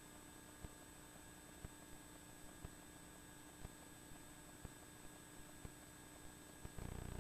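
Near silence: a faint steady electrical hum with small ticks about once a second. Near the end the background noise steps up louder.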